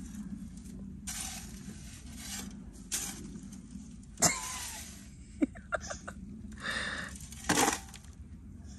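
A shovel blade scraping and digging into gravelly dirt, with loose grit rattling, a few sharp knocks and clinks where the shovel strikes the ground or a bucket.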